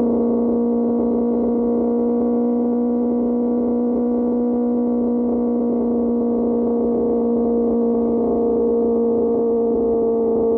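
QJ Motor SRK600 inline-four engine through an SC-Project exhaust, held at steady revs with an unchanging drone while the bike cruises.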